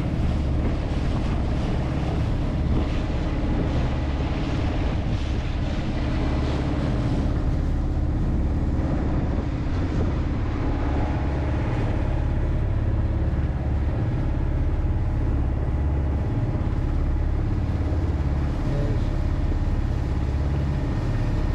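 Sailing yacht's engine running steadily under way, a constant low drone with a steady hiss over it.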